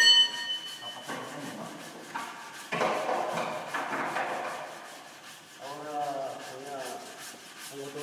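A steel tool clinks and rings briefly right at the start. A couple of seconds later a gloved hand rubs across the pickup's bare steel rear fender, a rough scraping noise that lasts a second or two.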